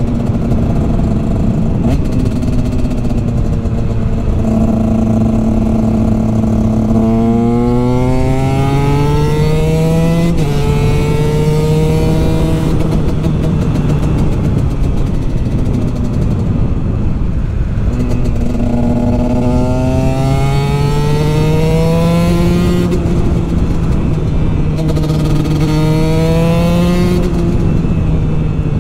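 Husqvarna 125 TX supermotard's two-stroke single, breathing through an FMF expansion chamber and Akrapovic silencer, pulling hard on the road. Its pitch climbs three times, about 7, 19 and 25 seconds in, each time dropping back suddenly as it is shifted up or the throttle is rolled off.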